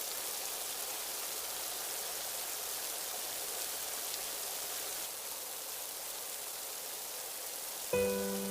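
Steady, even hiss of falling rain. Near the end, gentle piano music comes in.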